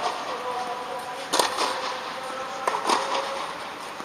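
Tennis balls being struck by racquets and bouncing during rallies in an indoor tennis hall: about four sharp pops, two of them in quick succession near the end.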